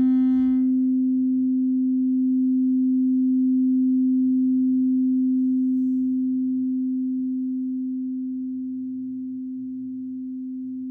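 Singing bowl tuned to C (432 Hz tuning) sounding one steady, pure tone. Brighter overtones ring briefly in the first second, then the single note holds and slowly fades over the last few seconds.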